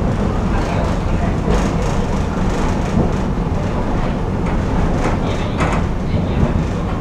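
Tram running along its tracks, heard from on board: a steady low rumble of wheels and running gear on the rails, with a few brief sharper rattles or clacks.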